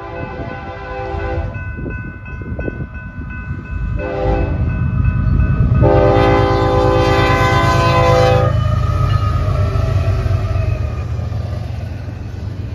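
BNSF freight train's locomotive air horn sounding for a grade crossing: a long blast ending about a second and a half in, a short blast about four seconds in, then the loudest, long blast from about six to eight and a half seconds as the locomotives reach the crossing. Under it, the low rumble of the diesel locomotives and double-stack cars rolling past builds and holds to the end.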